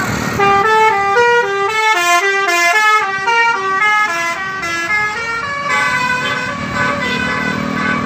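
Tour bus's telolet horn, a multi-tone musical air horn, playing a fast run of short notes that step up and down in pitch for about five seconds, then settling into fainter, steadier held tones.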